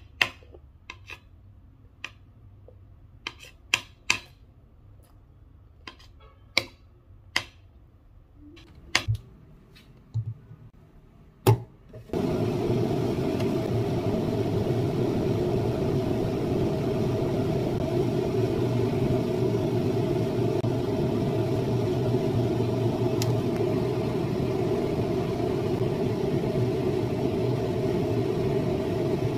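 Metal fork and spoon clinking and scraping on a ceramic plate, about a dozen sharp taps over the first twelve seconds. About twelve seconds in, a steady mechanical whirring hum cuts in abruptly and holds without change.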